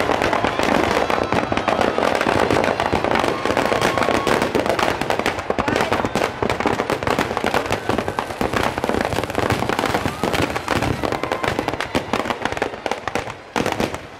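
Firecrackers packed into a burning Ravan effigy going off in a dense, rapid crackle of overlapping bangs, thinning out near the end.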